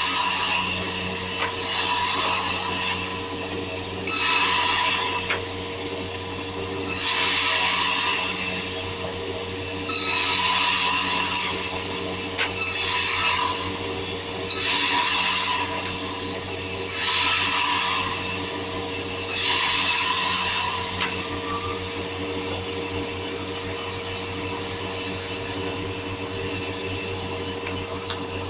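Wood-cutting saw machine running with a steady hum, cutting through wood in repeated passes about every two and a half seconds; the cuts stop well before the end, leaving the machine humming.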